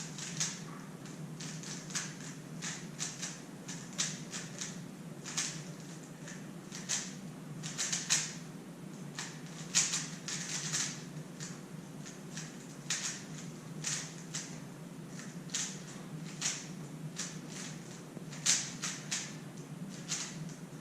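Plastic clicking and clacking of a stickered GAN 356 Air 3x3 speedcube being turned fast during a timed solve, in irregular runs of quick turns with short pauses between.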